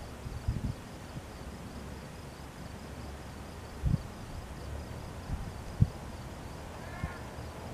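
Insects chirping in a rapid, even pulse, about five chirps a second, over a low steady drone from a distant light plane's engine at low power as it taxis. A few soft low thumps come through.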